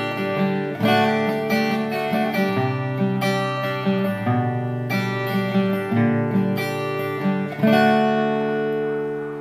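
Acoustic guitar music: plucked notes and chords in a steady rhythm, ending on a chord struck near the end that rings on and slowly fades.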